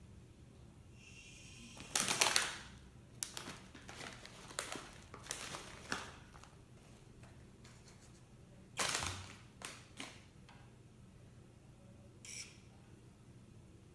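A Doritos chip bag crinkling and crackling as the EZGripper robotic gripper squeezes it, lifts it and sets it down, loudest about two seconds in and again about nine seconds in. A short whir from the gripper's motor comes just before the first crinkle as the fingers close, and another brief one near the end.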